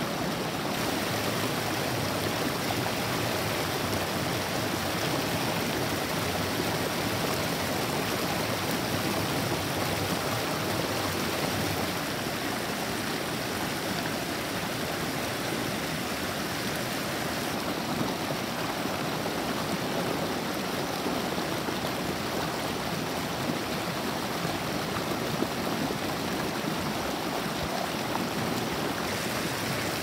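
Clear stream water rushing and foaming over and between rocks, a steady even water noise that turns a little softer about twelve seconds in.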